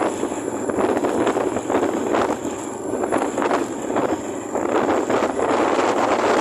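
Wind rushing and buffeting over the microphone of a moving motorbike, a steady gusty noise that swells and dips every second or so, with a thin steady high whine underneath.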